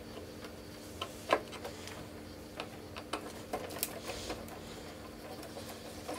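A screwdriver backs screws out of the plastic body of a Polaris 380 pool cleaner, giving scattered small clicks and taps of metal on plastic over a faint steady hum.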